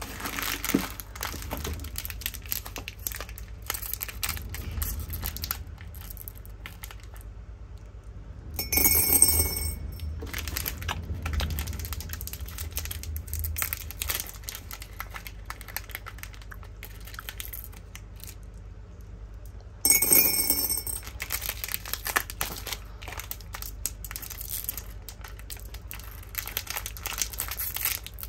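Plastic candy wrappers crinkling and tearing as candies are unwrapped, with many small rustles and clicks. Twice, about nine and twenty seconds in, comes a brief louder burst with high steady tones in it.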